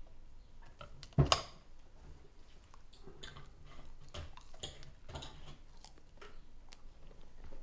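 A person chewing and eating French fries, with small mouth and cutlery clicks. A loud double knock comes about a second in.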